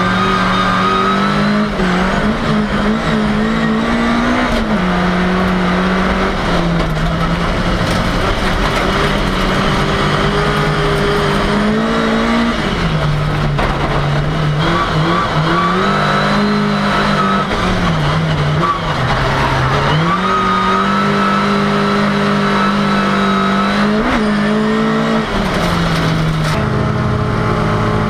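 Ford Cortina race car's engine at high revs, heard from inside the car. Its note rises and falls throughout, with several sharp drops.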